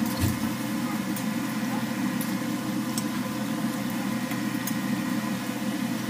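Batter-coated potato chops deep-frying in hot oil in an iron kadai: a steady sizzle with a steady low hum underneath, and a few light ticks.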